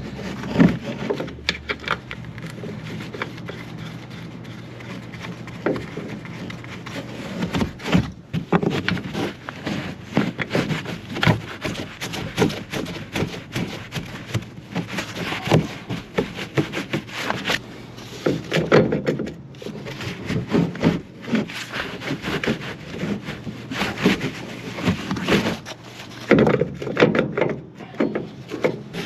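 Irregular knocks, clinks and scrapes of hand work on a pickup's front suspension, as the strut assembly is shifted into its mount and its top-mount nuts are started by hand. A steady low hum runs underneath.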